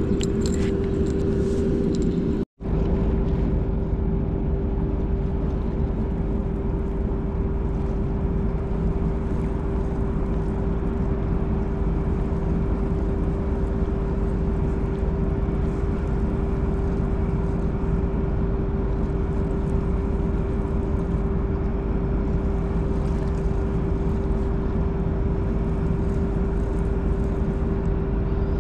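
A steady low mechanical drone with a constant mid-pitched hum, unchanging apart from an instant's dropout about two and a half seconds in.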